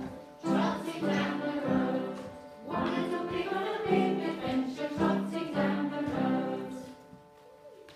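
Music with singing voices: a sung tune of short held notes in a steady rhythm, dying away about seven seconds in.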